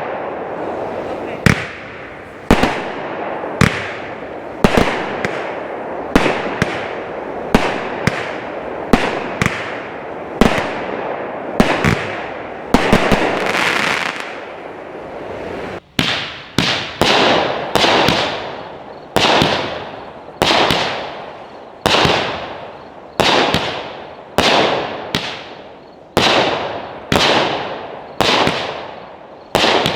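A 30-shot, 200-gram fanned consumer firework cake firing shot after shot, about one a second, each a sharp bang that fades away. About halfway through the sound drops out suddenly, then a fresh run of evenly spaced shots follows.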